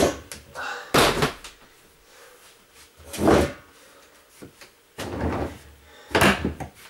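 Storage boxes being lifted and stacked, knocking and bumping against each other about five times with some scraping between.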